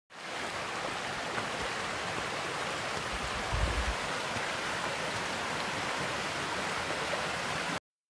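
Shallow stream rushing and splashing over rocks, a steady wash of water, with a brief low rumble about three and a half seconds in. It cuts off abruptly just before the end.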